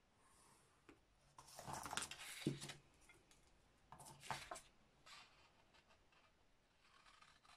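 Craft tools handled on a cutting mat: a ruler and pencil clatter down about a second and a half in, and scissors are picked up around four seconds. Near the end, scissors start snipping through a sheet of paper to cut a strip.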